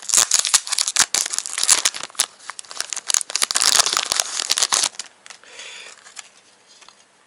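Foil blind-bag wrapping of a can badge crinkling as it is handled and opened by hand: dense crackling for about five seconds, then only faint rustling.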